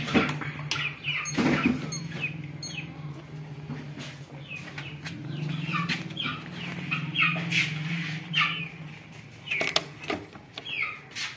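Many short, high-pitched chirping calls, each falling in pitch, repeating throughout over a steady low hum.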